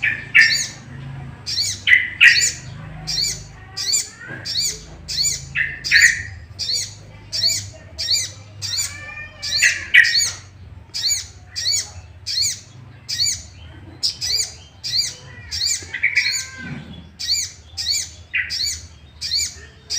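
Crested jay (sogon, sogok ontong) calling in agitation: sharp high notes repeated about twice a second, with a louder, lower note every couple of seconds. This is a lure call, used to make kept sogon birds call back aggressively.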